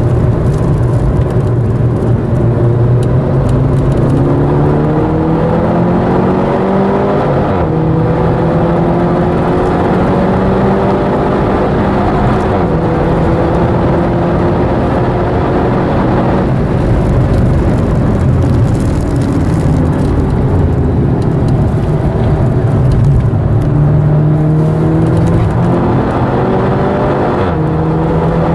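Seat Leon Cupra's turbocharged four-cylinder engine, heard from inside the cabin, pulling hard on track: its pitch climbs under acceleration and falls sharply about four times as it shifts up or lifts, over a constant rumble of road and tyre noise.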